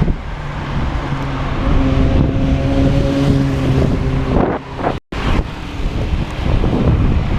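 Wind buffeting the microphone of a moving bicycle, with the steady hum of a nearby motor vehicle's engine for the first few seconds. The sound cuts out for a split second about five seconds in.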